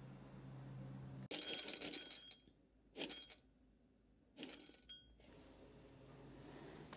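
Dry dog kibble poured from a cup into a hard bowl in three short bursts about a second apart, clinking and rattling. It is the food sound used to call the dog to eat.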